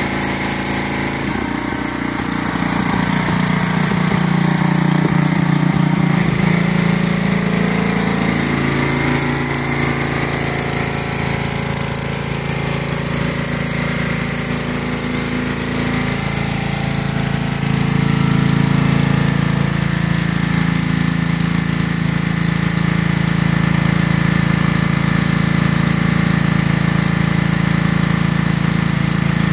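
Small gas engine of a pressure washer running steadily under load, with the hiss of high-pressure water spraying from a rotating surface cleaner on concrete. The engine note shifts a few times in the first several seconds, then holds steady.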